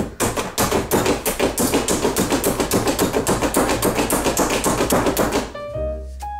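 Manual plunger food chopper crushing pecans: the plunger is pumped in rapid, repeated strokes, several a second, each a sharp clack of blades and nuts against the container, stopping about five and a half seconds in. Piano background music begins right after.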